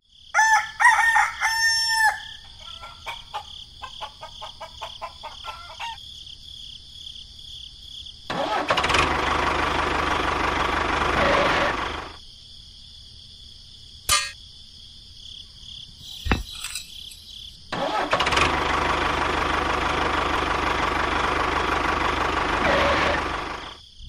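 A rooster crows once at the start. Later come two stretches of engine noise, one of about four seconds and one of about six, each starting and stopping abruptly.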